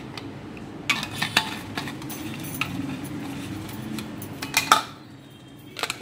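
Stainless steel vacuum flasks and their lids being handled: a string of light metal clinks and knocks, the loudest a little under five seconds in.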